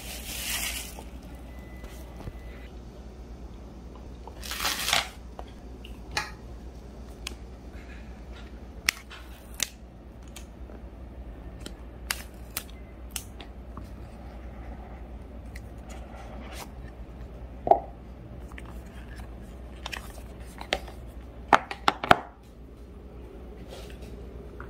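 Cardboard and paper packaging of an AirPods Pro 2 retail box being handled and opened by hand: scattered light clicks and taps with short rustles, a louder rustle of tearing wrapping about five seconds in, and a cluster of sharp clicks near the end.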